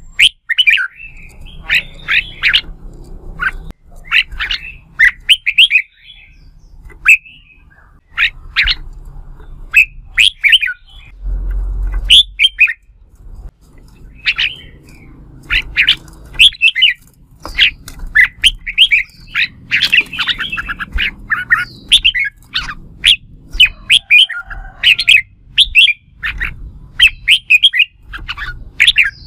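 Red-whiskered bulbul singing loud, quick, warbling phrases in close succession, over and over: the bird's competitive fighting song.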